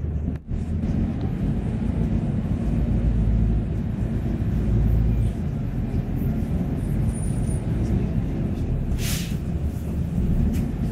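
City bus engine and road rumble heard from inside the moving bus as it pulls away. A short hiss comes about nine seconds in.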